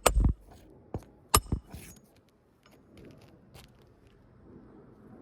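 A hand hammer striking roofing nails into asphalt shingles: one sharp strike right at the start and another about a second and a half in. Faint clicks and light scraping of shingles being handled follow.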